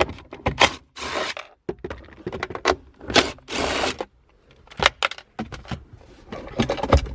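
Tool work on a car's center console while its bolts are taken out: a run of sharp clicks and knocks, with short rasping bursts about a second in and again around three to four seconds in.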